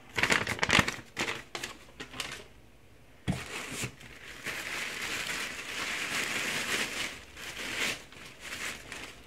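White packing paper crinkling and rustling as it is pulled off a hat by hand, with a single thump a little after three seconds in.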